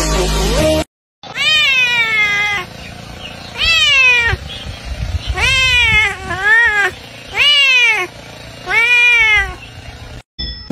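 An orange tabby cat meowing six times, each meow rising then falling in pitch, about a second or so apart. Music plays briefly at the start and cuts off about a second in.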